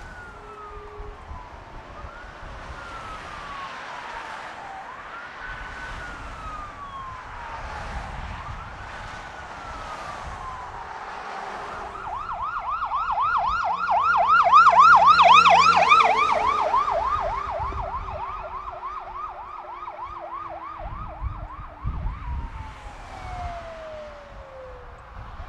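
Fire engine's electronic siren responding: a slow wail rising and falling about every two and a half seconds, switching about twelve seconds in to a fast yelp. The yelp is loudest as the engine passes, and the siren ends in a long falling wail as it moves away, over passing traffic noise.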